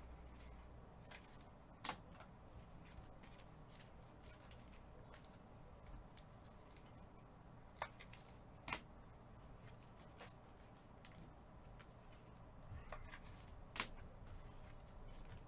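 Trading cards being handled quietly, with a few sharp light clicks and snaps of card against card over faint room noise.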